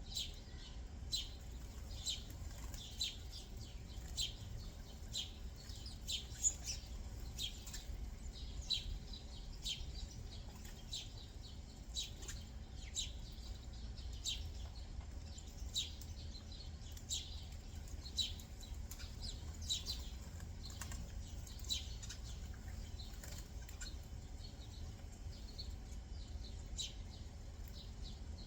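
Backyard songbirds chirping: a run of short, high, downslurred chirps, one or two a second, thinning out over the last third, over a low steady background rumble.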